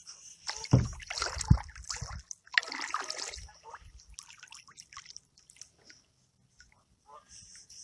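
Water splashing and sloshing in two bursts with a couple of heavy low thumps in the first few seconds, then scattered small clicks and rustles.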